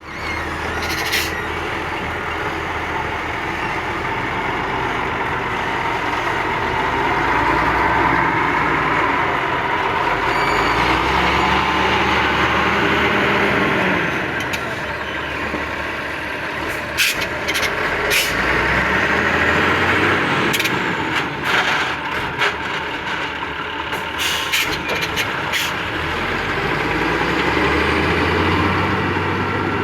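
Heavy diesel earthmoving machinery running, the engine note rising and falling several times as it works under load, with a few sharp metallic knocks.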